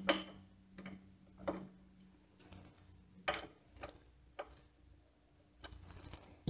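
Faint, irregular clicks and taps of a small hex driver working the grub screws in the belt pulley on a 3D printer's lead screw, as the screws are loosened so the lead screw can spin freely.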